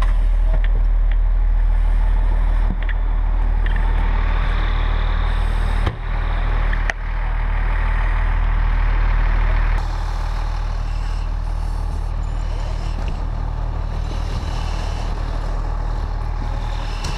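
Fire engine's diesel engine idling, a steady low rumble, with two short knocks about six and seven seconds in; the rumble drops slightly after about ten seconds.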